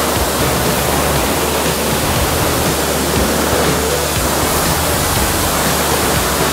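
Pressure washer lance spraying water onto a car's bodywork and wheels with a loud, steady hiss: rinsing off iron fallout remover.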